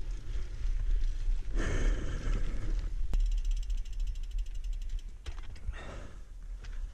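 Single-speed mountain bike's rear freewheel ticking rapidly and evenly while coasting, for about two seconds starting a little past the middle. A steady low wind rumble on the microphone runs underneath, with two short bursts of rustling trail noise.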